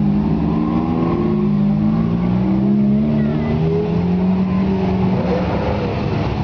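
Several Ferrari sports-car engines running together, their notes overlapping and drifting slightly up and down as they rev gently.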